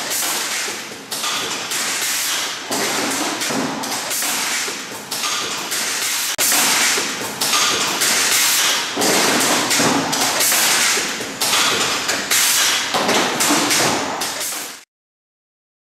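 Gossamer TE-700W tray erector running, its mechanism clattering with a dense, continuous stream of knocks, taps and air hiss as it folds corrugated cardboard into trays. The sound cuts off suddenly near the end.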